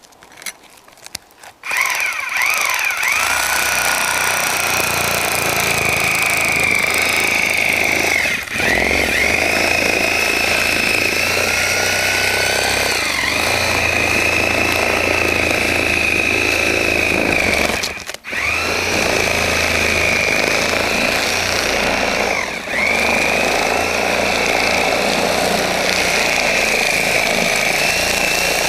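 Power saw cutting a hole through roof shingles and sheathing: a steady high motor whine that starts about two seconds in and dips in pitch a few times as the blade takes the cut. It stops briefly about two-thirds of the way through, then runs on.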